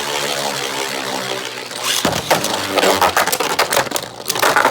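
Beyblade spinning tops in a plastic stadium: a steady whirring hum for about two seconds, then a fast run of sharp plastic clacks as the tops collide, with a loud flurry of hits near the end.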